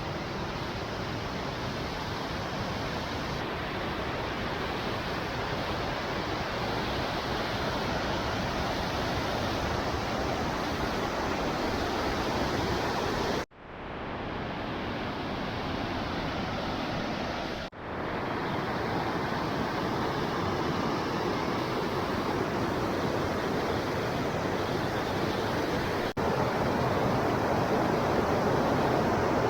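Waterfall rushing: a steady, dense wash of falling water. It drops out for an instant twice around the middle.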